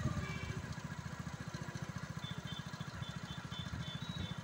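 Motorcycle engine running steadily at low road speed, its rapid, even firing pulses close to the microphone.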